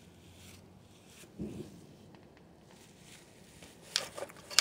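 Handling noise from a phone against fabric: a soft low thump about a third of the way in, then a quick cluster of sharp clicks and rustles near the end.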